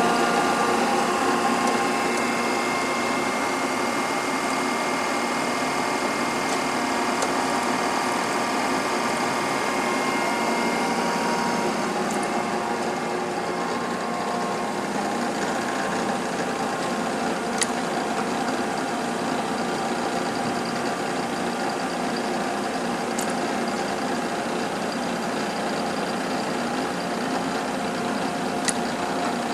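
Cincinnati universal cylindrical grinder running, a steady machine hum with several steady tones in it. From about twelve seconds in, a sharp tick comes about every five and a half seconds.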